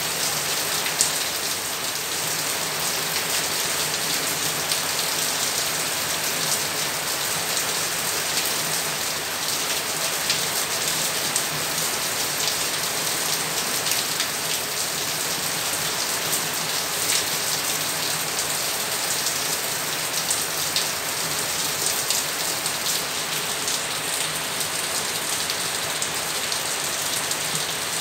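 Steady rain falling, a continuous hiss with many individual drops tapping on surfaces.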